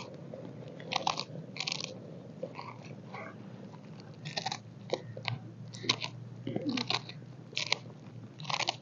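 Fresh spinach leaves snapped and torn apart by hand: a string of short, crisp crackling snaps at uneven intervals, about a dozen in all.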